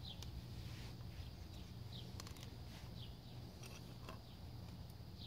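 Quiet outdoor background with a low steady hum, a few faint short bird chirps and some light clicks of small parts being handled.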